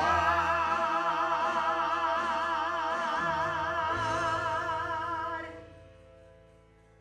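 A man and a woman singing a song's final note together, held with a wide, even vibrato for about five seconds, then fading away.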